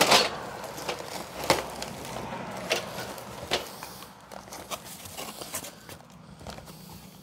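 A cardboard shipping box being opened and its contents handled: a loud rustle of a cardboard flap being pulled back at the start, then scattered crinkles and light knocks as packing is moved about.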